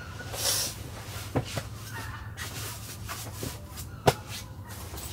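Rustling and swishing of a thick quilted comforter being folded and rolled up by hand, with a few light knocks on the cargo floor; one sharp knock about four seconds in is the loudest.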